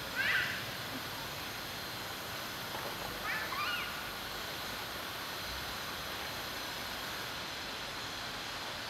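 Steady outdoor background hiss with two brief bouts of high chirping calls from an animal. The louder one comes right at the start, and a cluster of several rising and falling chirps follows about three seconds in.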